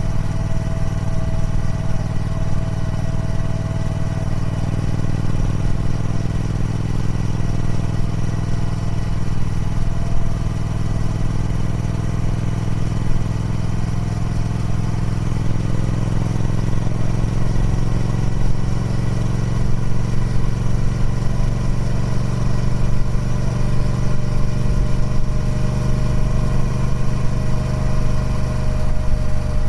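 Triumph Speed Twin 1200's 1200cc parallel-twin engine running through its stock exhaust. Its note stays steady, with slow, slight shifts in pitch.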